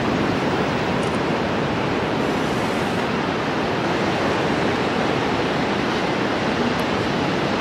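Steady rushing noise of sea surf and wind, even in level, with no voices or distinct impacts.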